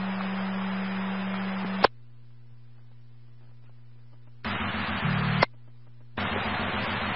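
Police scanner audio of open radio transmissions with no voice: static hiss over a low steady hum, cut off by a squelch click just under two seconds in. A second short transmission starts about four and a half seconds in and ends with a click, and a third starts about six seconds in.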